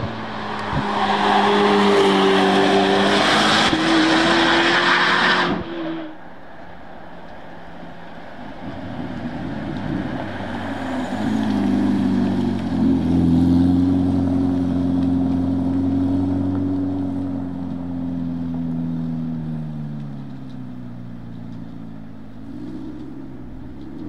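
Corvette C8 ZR1 prototype's V8 running hard at speed, loud, until it cuts off abruptly about five seconds in. Then the same car drives by at lower speed, its engine note swelling, holding steady, dropping in pitch and fading near the end.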